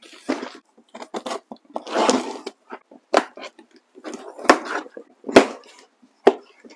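Cardboard shipping box being handled, its packing tape slit with a knife and the flaps opened: scraping and rustling of cardboard with scattered clicks, and two sharp knocks a little past the middle.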